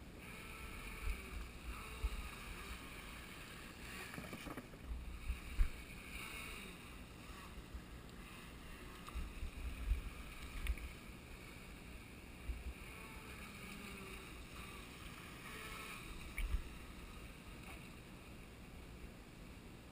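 Radio-controlled jet boat's 540 electric motor whining faintly as it runs across the water, the pitch and level swelling and fading as it moves. Gusts of wind buffet the microphone every few seconds.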